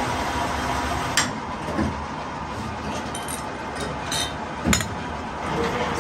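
Metal parts clinking as a machined tractor differential case is handled, with sharp knocks about a second in and again near five seconds, over a steady background machinery hum.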